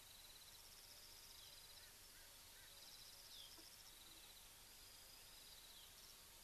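Faint chorus of insects, most likely crickets: short pulsed trills at two high pitches that overlap and repeat every second or so, with a brief falling whistle about halfway through.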